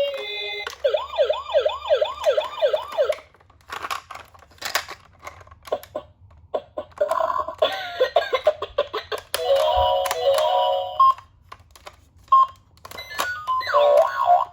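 Toy ambulance's electronic siren: a fast up-and-down wailing yelp for about two and a half seconds, then a run of sharp plastic clicks, then more siren tones and sweeps later on.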